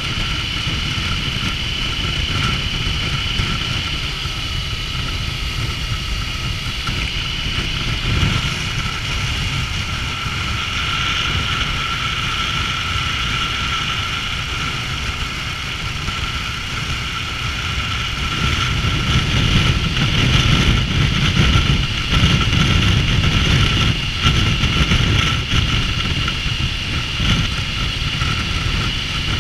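Triumph Tiger 900's three-cylinder engine running under a rider on the move, heard over a dense steady rumble with a thin high whine on top; it gets louder about two-thirds of the way through.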